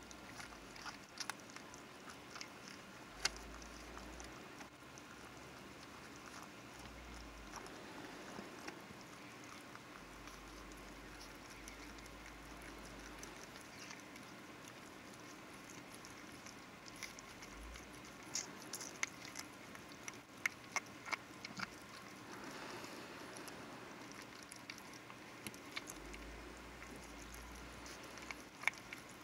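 Faint wet licking and small mouth clicks from a mother dog tending her newborn puppies, with a cluster of sharper clicks about two thirds of the way through.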